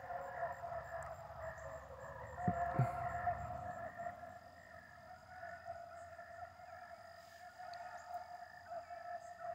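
A pack of beagles baying as they trail a rabbit, several hound voices overlapping in one continuous, unbroken chorus. Two dull knocks about two and a half seconds in.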